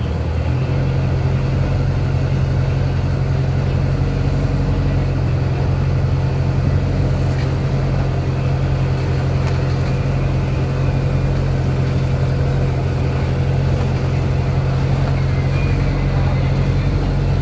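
A large engine running steadily at idle, giving a constant low hum.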